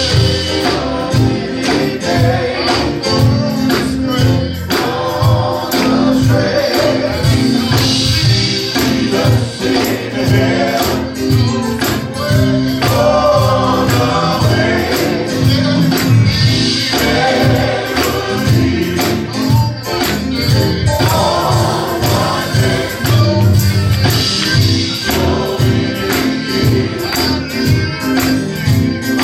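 Live gospel music: voices singing over a band with a steady percussion beat.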